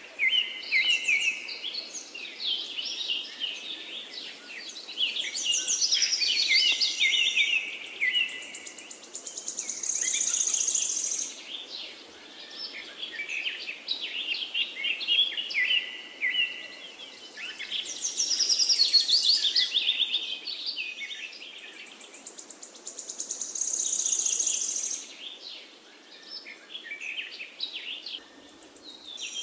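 Birds chirping and trilling in a busy chorus, high-pitched, rising and falling in swells that seem to repeat about every 14 seconds, like a looped nature-sound background track.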